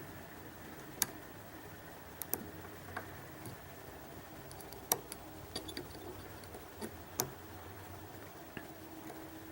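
Light, sharp clicks of a lock pick working the pins inside a Mul-T-Lock Interactive lock, about a dozen at irregular intervals, with a faint steady hum underneath.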